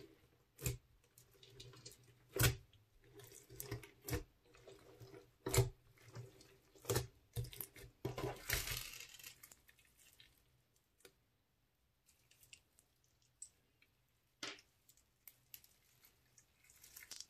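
Hands pressing and poking a large crunchy slime packed with beads, sequins and straw pieces: wet, sticky squishing with a run of sharp pops and clicks, busiest in the first half, then quieter, with one more pop and soft crackling near the end.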